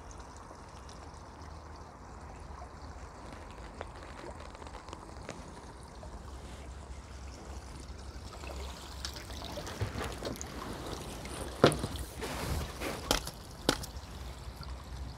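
A hooked crucian carp splashing and sloshing at the water's surface as it is played in and netted. The first half is quiet apart from a faint low rumble. The splashing starts about halfway through, with a few sharper splashes near the end.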